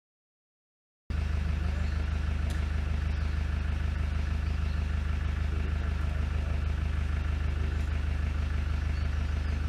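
A vehicle engine idling steadily, a low even hum that cuts in about a second in.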